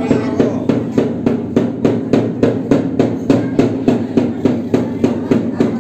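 A hand drum beaten in a fast, even rhythm, about four strokes a second.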